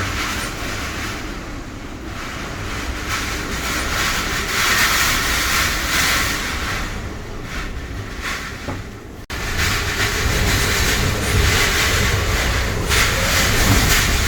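Typhoon winds gusting in a steady rush that swells and eases, with heavy wind buffeting on the microphone. The sound breaks off sharply for a moment about nine seconds in, then resumes.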